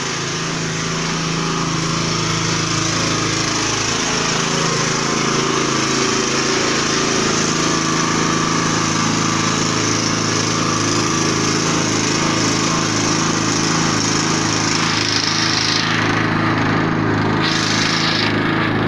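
Small stationary petrol engine running steadily, driving a sawdust mixer.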